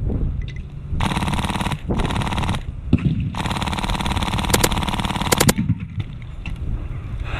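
Airsoft MK46 light machine gun with a Polar Star Fusion engine firing on full auto in three bursts: two short ones about a second apart, then a longer burst of about two seconds.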